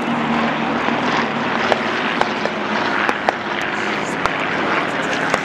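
Propeller-driven aircraft engines droning overhead as several planes fly past, with scattered sharp cracks throughout.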